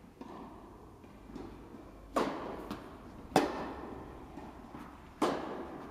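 Tennis rally: a tennis ball is struck by rackets and bounces on the court, giving sharp pops one to two seconds apart, each ringing on in the hall's echo. The loudest comes about a third of the way through.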